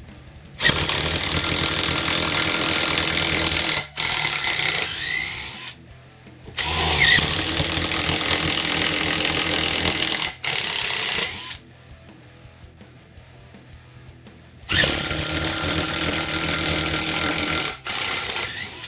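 Makita TD022D 7.2 V pen-style impact driver drilling a 5 mm hole in pine, running in three long runs of a few seconds each with short stops in between.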